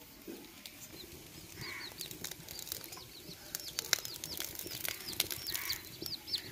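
Small birds chirping over and over in short, high, down-curving chirps, with scattered sharp clicks and taps among them.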